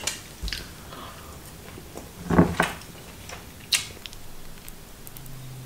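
Stainless knife and fork clicking and scraping against a ceramic plate a few times as food is cut and scooped. A low steady hum starts near the end.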